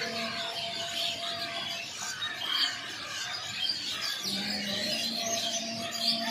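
A flock of small songbirds chirping and twittering at once, many short overlapping calls. A steady low hum sits underneath and comes in about four seconds in.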